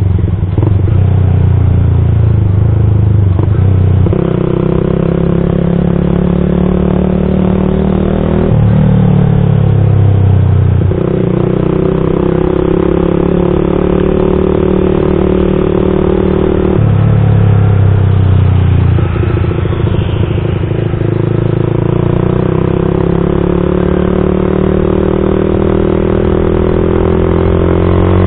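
Yamaha MX King 150's single-cylinder four-stroke engine running loud through a custom aftermarket exhaust while being ridden. The pitch steps up and down several times as the throttle is opened and eased, then climbs steadily near the end.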